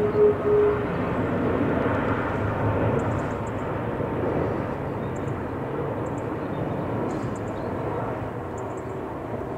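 Airbus A330-243 airliner's Rolls-Royce Trent 700 turbofan engines on final approach with the gear down: a steady jet rumble overhead that slowly fades as the aircraft passes. A faint whine sits in it for the first second.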